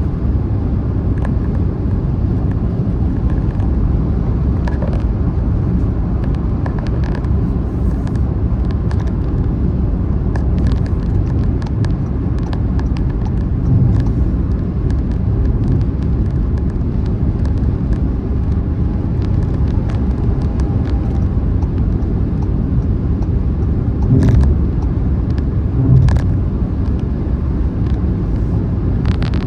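Car driving on a motorway: a steady, loud, low rumble of road and tyre noise, with faint ticks and a few brief louder bumps, about 14, 24 and 26 seconds in.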